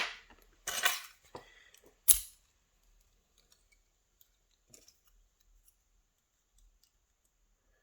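Small metal lockpicking tools (follower, shim, tweezers) being handled and set down: a short clatter about a second in and a sharp knock near two seconds, then only faint light ticks.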